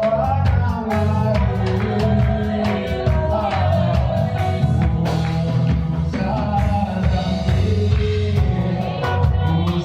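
Live gospel worship music: a band with drums and bass playing while voices sing.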